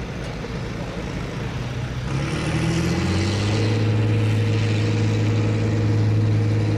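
Big turbocharged John Deere tractor engine revving up about two seconds in, with a faint rising high whistle, then holding steady at high revs, louder than before.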